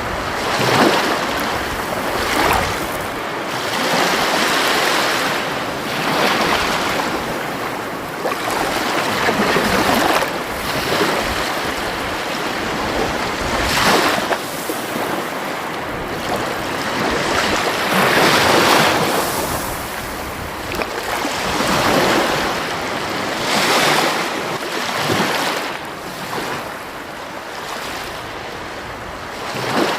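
Sea waves breaking and washing onto the shore, one surge after another every few seconds over a steady rush of surf.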